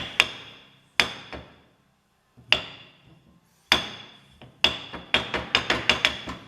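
Sharp metallic clacks from a lawn tractor variator pulley being rocked and worked by hand on the bench, loose parts knocking through their play with a short ring. A few spaced clacks at first, then a quicker run of about three a second from a little past halfway.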